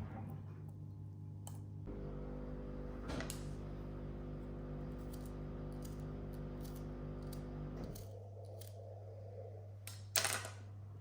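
A small electric appliance hums steadily for about six seconds and then stops, over a quieter background hum; a short clatter near the end.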